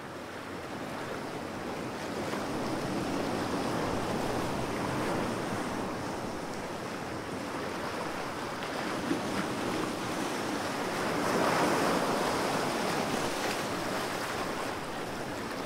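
Ocean surf: a steady hiss of waves washing in, swelling a few seconds in and again about two-thirds of the way through.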